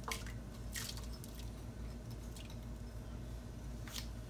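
Chopped onions tipped from a bowl into a pot of water, plopping and splashing softly a few times, over a low steady hum.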